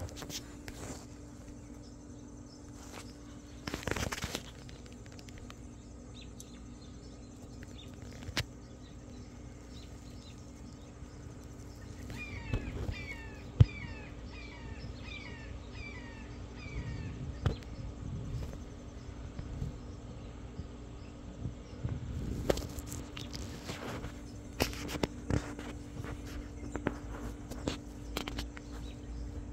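A small bird chirps a quick run of short, repeated notes for a few seconds near the middle, over a steady low hum and outdoor background. Scattered sharp clicks and knocks, the loudest one among the chirps.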